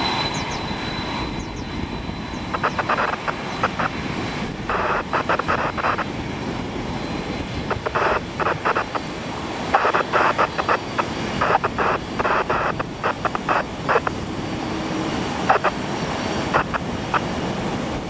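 Boeing 747-400 freighter's jet engines running at low thrust as it taxis close by, a steady rushing noise with a faint high whine fading early on. Over it come repeated bursts of rapid clicking and rattling.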